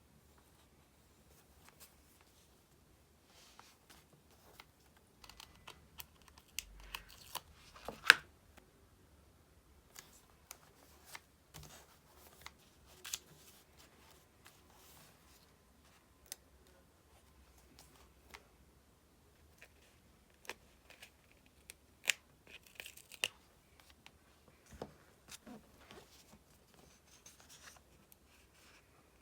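Stickers being peeled off their backing sheet and pressed onto paper diary pages: scattered soft peeling rips, paper crinkles and light taps, with a sharper snap about eight seconds in and again around twenty-two seconds in.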